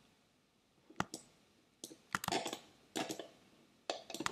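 Computer mouse and keyboard clicks: a fairly quiet, irregular series of sharp clicks, some single and some in quick clusters, starting about a second in.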